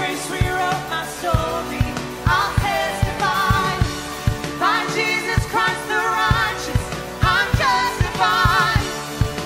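A woman singing a worship song into a microphone over electric keyboard chords and a steady drum beat.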